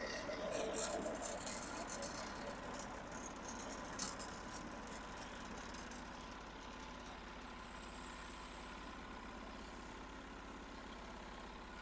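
Norwood HD36 sawmill engine idling steadily, with light rattling and clicking over the first four seconds or so.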